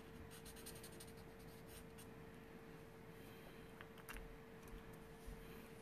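Faint scratching of a Copic alcohol marker's nib stroking over paper while coloring in a stamped image, with a steady faint hum underneath.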